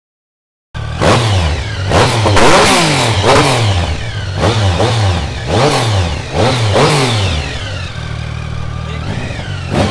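Triumph Speed Triple 1050's three-cylinder engine revved in a run of quick throttle blips, each rising and falling in pitch. It then settles to a steady idle about eight seconds in.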